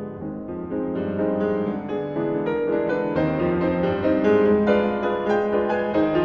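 Background piano music, growing louder over the first couple of seconds and then holding steady.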